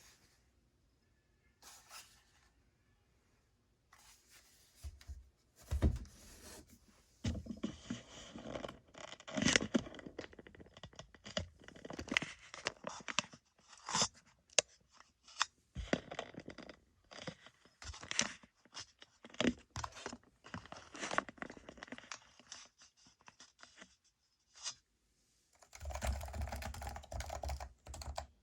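Typing on the silent Topre switches of a Leopold FC660c keyboard: key presses in uneven bursts, becoming steady fast typing near the end.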